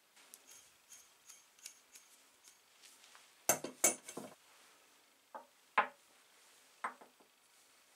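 Metal parts of a hand drill, its frame and gears, clinking and knocking against each other and a wooden workbench as they are handled and set down. Light ticking at first, then a quick cluster of louder clinks a little past the middle, followed by a few single knocks.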